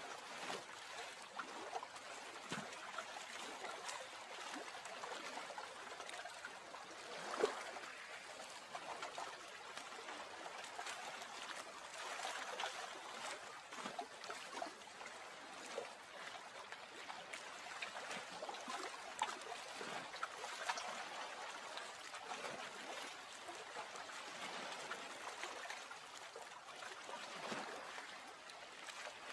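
Water trickling and lapping steadily, dotted with small drips and splashes, with one louder splash about seven seconds in.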